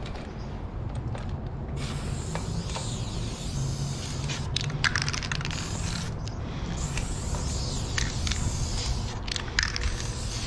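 Aerosol spray paint can hissing as black paint is sprayed onto a concrete wall, in several long strokes with short breaks and a few clicks between them.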